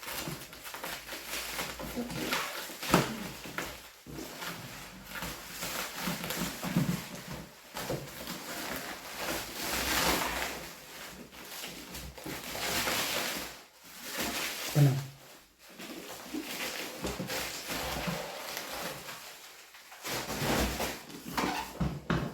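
Irregular rustling and handling noises from a soft box light kit being unpacked, with scattered short low sounds among them.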